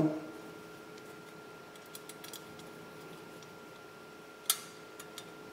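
Light metallic clicks of an Allen key working small socket head cap screws tight into an aluminium channel: a few faint ticks about two seconds in and one sharper click about four and a half seconds in.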